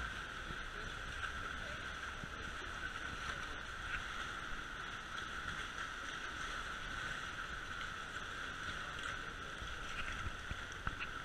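Small tour boat's engine running steadily at low speed, with water lapping against the hull.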